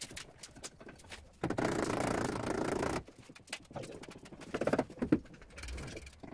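Tile laying on a floor of large tiles: a rough scraping rub about a second and a half in, lasting about a second and a half, with scattered light clicks and taps around it.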